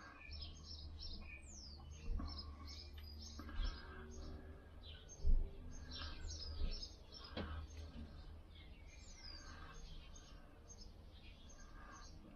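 Birds chirping outside, many short high notes with a few falling whistles among them. A few sharp metal clinks and knocks from handling tools come through, the loudest about five seconds in.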